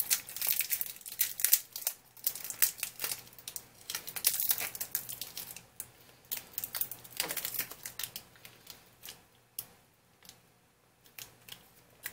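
Plant packaging crinkling and rustling as it is unwrapped by hand, in irregular crackles that are busy at first and thin out to near quiet about ten seconds in.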